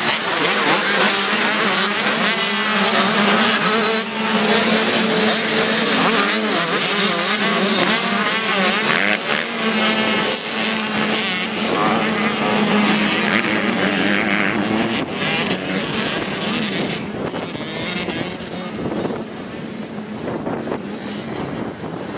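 Several 85cc two-stroke motocross bikes racing, their engines revving up and down through the gears in a layered, overlapping din. The sound fades noticeably after about 17 seconds as the bikes move away.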